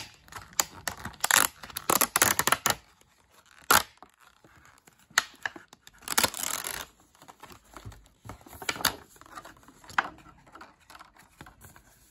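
Clear plastic product packaging being opened by hand: irregular bursts of crinkling and tearing plastic with sharp clicks, the longest tearing stretch about six seconds in.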